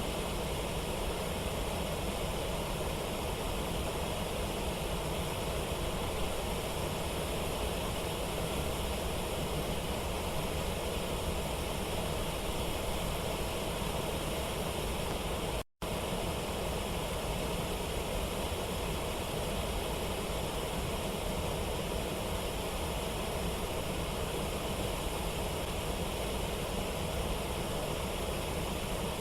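Waterfall: a steady, unbroken rush of falling water, cut off for an instant about halfway through.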